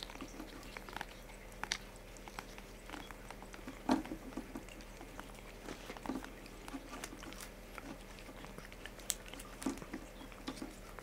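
Abyssinian cat licking and biting a paste treat from a squeeze pouch: irregular wet smacking and small clicks of tongue and teeth, with a louder click about four seconds in and another near nine seconds.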